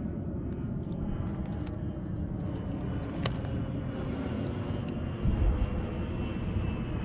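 Steady low rumble, with a sharp click about three seconds in and a louder low thump a little after five seconds.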